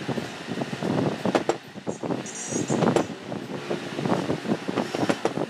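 Wind buffeting the microphone in an uneven rumble, with scattered light knocks and clicks as the metal finned stator housing of an old electric water pump motor is handled on a wooden bench.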